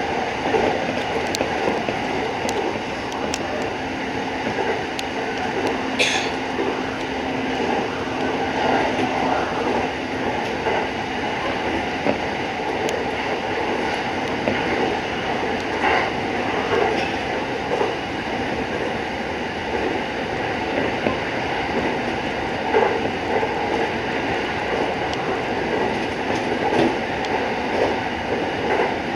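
Musashino Line electric commuter train running between stations, heard from inside: a steady rumble of wheels on rail with a few sharp clicks, and a faint steady tone for several seconds early on.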